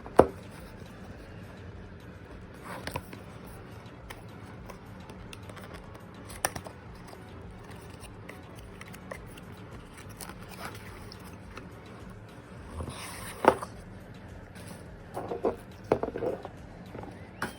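Scattered taps, clicks and light scrapes from a perfume box and bottle being handled, over a steady low hum. The sharpest click comes just after the start, another about thirteen seconds in, and a short cluster near the end.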